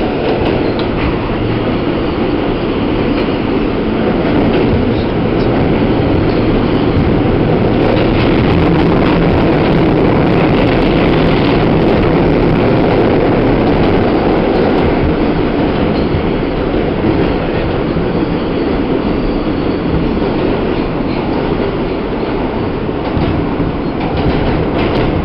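New York City Subway E train running through a tunnel, heard from inside the car: a steady rumble of wheels on rail with occasional clacks.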